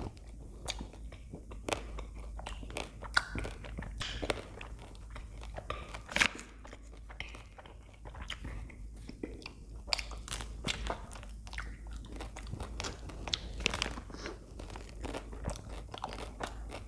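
Close-miked biting and chewing of a chocolate-coated ice cream bar, its hard chocolate shell cracking in many irregular sharp crunches.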